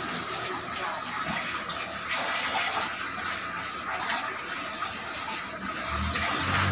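Water running from a tap in a small tiled bathroom, a steady splashing rush. A low hum comes in near the end.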